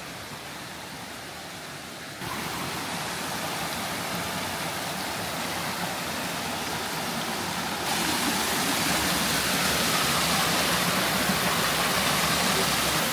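Water of a rocky stream rushing and splashing over rocks in small cascades: a steady rushing noise that jumps louder abruptly about two seconds in and again near eight seconds, loudest at the end close to a small white-water cascade.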